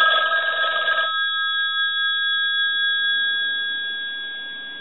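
Western Electric 500 rotary telephone's twin-gong bell ringing, driven by a ring cycle from a line analyzer. The burst of ringing stops about a second in, and the gongs then ring on, fading slowly through the pause in the cycle.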